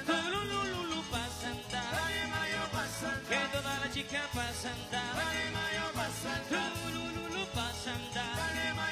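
Live band playing upbeat palo de mayo dance music, with a steady bass line and percussion under melodic lines.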